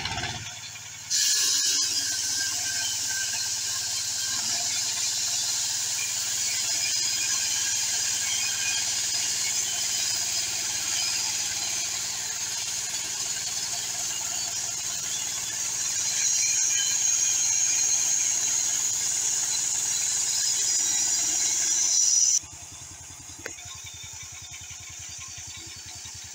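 Petrol-engined portable band sawmill brought up to speed about a second in, its band blade running and cutting into a log with a loud, high-pitched hiss and whine. About 22 s in it drops abruptly back to the engine idling.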